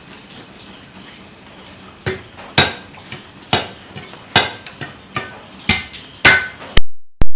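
Heavy cleaver chopping into a large fish on a wooden block. About eight sharp chops start about two seconds in, roughly two a second, some with a brief metallic ring. Near the end the background cuts out and a few very loud sharp cracks follow.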